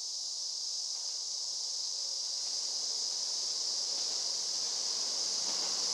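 Steady high-pitched insect chorus in summer woodland. Under it, the low rumble of an approaching JR Hokkaido H100 DECMO diesel-electric railcar grows louder toward the end.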